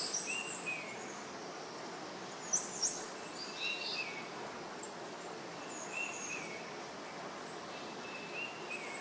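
Chicken pieces sizzling faintly in oil in a pressure cooker as they are stirred, with a few short bird chirps in the background.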